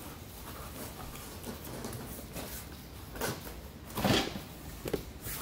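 Cardboard box packing and plastic-wrapped bubble wrap being handled: rustling and scraping. A louder thump comes about four seconds in, and smaller knocks come just after three seconds and near the end.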